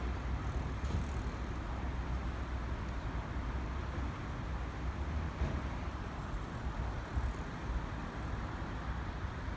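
Steady low rumble of road traffic, with no distinct event standing out.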